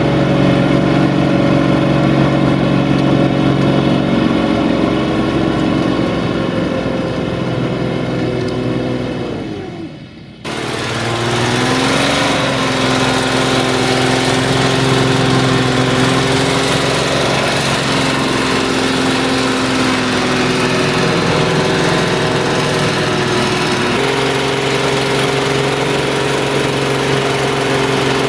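Tractor diesel engines running under load while pulling a plough through mud. The first engine note sags in pitch and fades about nine to ten seconds in and breaks off. Then a FIAT 1380 DT's six-cylinder diesel picks up and runs steadily, stepping slightly higher near the end.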